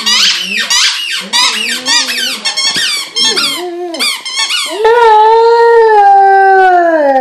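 A Vizsla chewing a squeaky toy, making it squeak rapidly over and over while he whines. About five seconds in he breaks into one long howl that dips slightly in pitch near the end.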